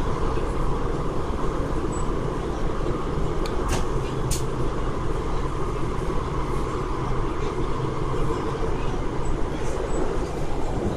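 Steady running noise of a West Rail Line SP1900 electric multiple unit, heard inside the passenger car as it travels between stations: an even rumble and rush of wheels on rail, with a few sharp clicks around four seconds in.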